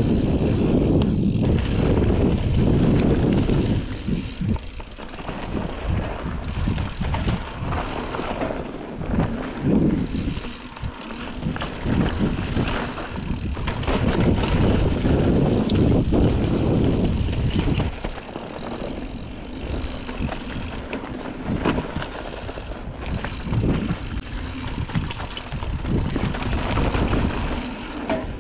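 Scott Spark mountain bike running fast down a dirt singletrack: wind rushing over the GoPro microphone and tyres rolling on packed dirt, with scattered sharp rattles from the bike. Louder for the first few seconds, eases off, surges again around the middle, then quieter through the last stretch.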